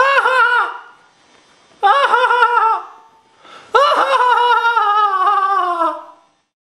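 Laughter in a high-pitched character voice, done by a puppeteer for a turtle puppet: three bouts of rapid 'ha-ha' laughs. The last bout is the longest and slides down in pitch as it trails off.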